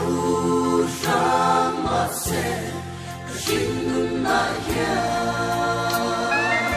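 Mixed choir of men and women singing a gospel song in Mizo, in harmony, with sustained notes that change together every second or so.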